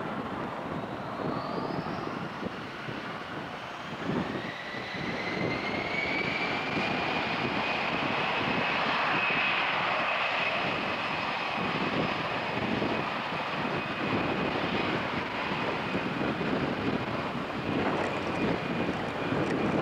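Airbus A320's twin turbofan engines spooling up for takeoff: a whine rises about four seconds in, then holds as a steady high whine over a loud jet roar while the airliner starts its takeoff roll.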